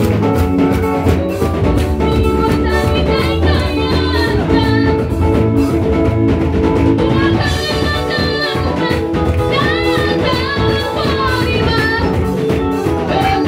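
Live church praise music: electric keyboard over a steady beat, with voices singing, amplified through loudspeakers.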